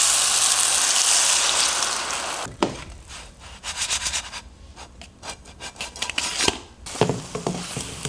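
Egg whites poured into a hot nonstick pan of turkey bacon and bell peppers sizzle loudly for about two and a half seconds. The sizzle then drops to quieter scraping and clicking of a spatula against the pan.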